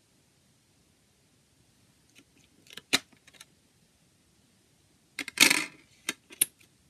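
Small plastic clicks as a CD is pried off the hub of a jewel case, then a louder clatter and several sharp snaps as the disc is set back in the tray and pressed onto the hub.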